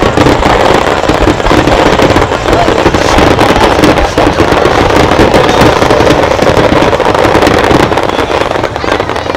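Fireworks barrage: many shells bursting in quick succession, a loud, dense run of bangs and crackling that eases slightly near the end.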